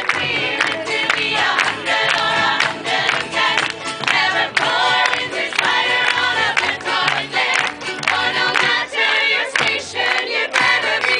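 Several voices singing a tavern song together, over a steady beat.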